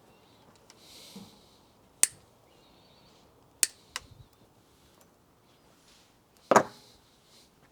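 Sharp clicks and knocks of tools and bike parts being handled, with soft rustling between. The loudest is a heavier knock about two-thirds of the way through.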